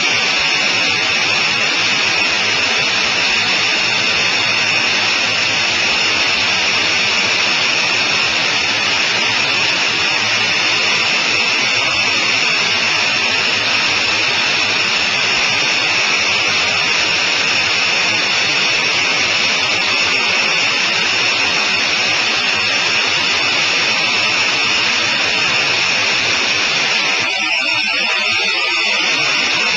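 Sonerai I light airplane in flight: its engine running steadily with wind noise over a helmet-mounted microphone, a loud unbroken noise that eases briefly near the end.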